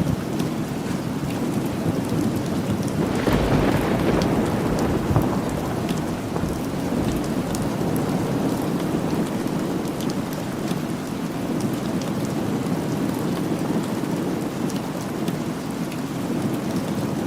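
Steady rain falling, with a low rumble of thunder that swells about three to five seconds in, and scattered sharp ticks throughout.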